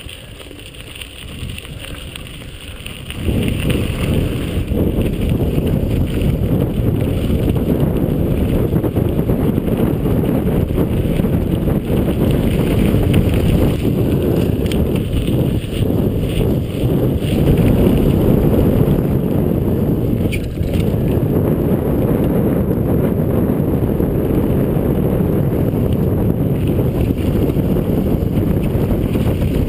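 Mountain bike being ridden on dirt singletrack: wind buffeting the microphone over the rumble of tyres and rattle of the bike. Quieter for the first few seconds, then a loud steady rush.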